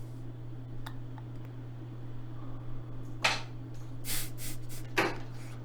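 A steady low hum with a few short, sharp clicks: one about three seconds in, a quick cluster around four seconds, and another near five seconds.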